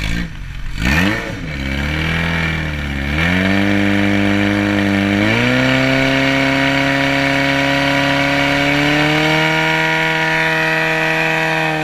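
Racing portable fire pump engine revving: a quick blip about a second in, then the speed steps up twice and holds high and steady while it pumps water out through the hose line to the targets.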